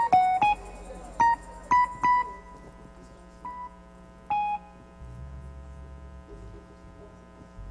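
Electronic keyboard playing scattered single bright notes: several in quick succession in the first couple of seconds, then two more spaced out, over a soft held chord.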